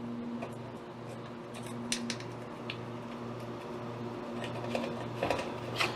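Scattered light clicks and taps of screws and plastic parts being handled while the refrigerator's evaporator fan assembly is put back together, over a steady low hum.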